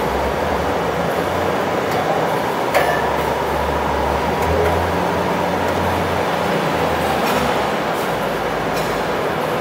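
Steady rumble and hum of a running plastic extrusion laminating line, with a single light click about three seconds in.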